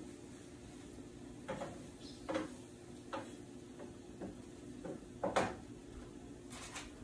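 Wooden spatula knocking and scraping against a frying pan while eggs are stirred, a few irregular clicks and taps, the loudest about five seconds in, over a low steady hum.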